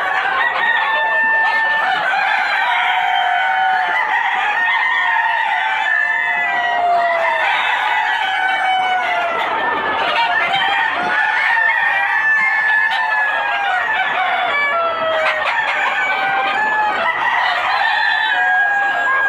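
A flock of desi chickens calling continuously, many birds clucking and crowing over one another in a dense, unbroken chorus.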